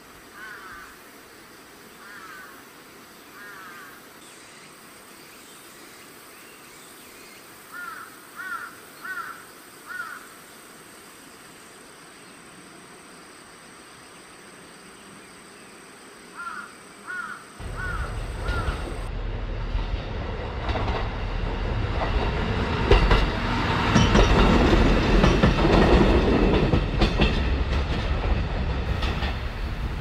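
A bird calling in short series of three or four over a quiet background, then from just past halfway a loud rumble with rattling builds up, like a heavy vehicle passing close by, and cuts off abruptly at the end.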